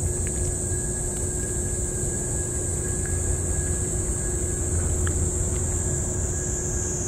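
A cat eating wet food from a metal dish, with a few faint licking and chewing clicks. Under it runs a steady high-pitched hiss and a low rumble.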